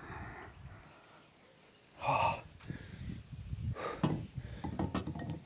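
A man's heavy breathing during strength training, with two loud, sharp gasping exhales about two and four seconds in.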